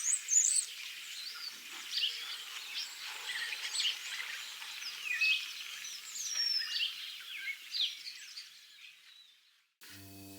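Songbirds chirping and singing, many short overlapping calls, fading out toward the end. Piano music starts just before the end.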